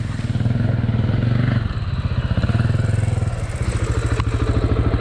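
KTM 950 Super Enduro's V-twin engine idling steadily with an even pulsing beat, with one light click about four seconds in.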